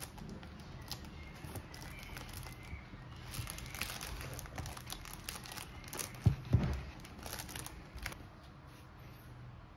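Bubble wrap and plastic packaging film crinkling and crackling as hands handle an iPad over it, with two quick knocks a little after six seconds in, the loudest sounds.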